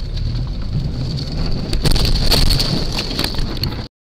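Inside a moving car, as picked up by a dash camera: a steady road and engine rumble with a steady high-pitched whine, and a few sharp clicks or rattles in the middle. The sound cuts off abruptly just before the end.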